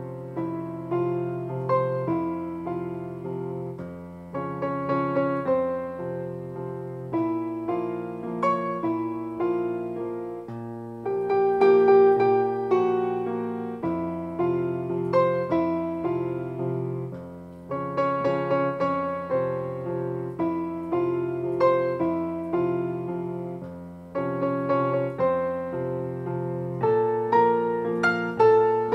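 Sampled software piano played live from an M-Audio Hammer 88 weighted-key MIDI controller: a steady stream of broken-chord notes over held bass notes that change every few seconds.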